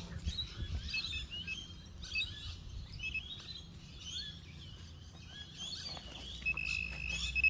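Small birds chirping throughout, with a few scrapes and thuds of digging in soft soil near the start. About six and a half seconds in, a handheld metal-detecting pinpointer probing the hole starts a steady high beep, signalling metal close by, here a $2 coin.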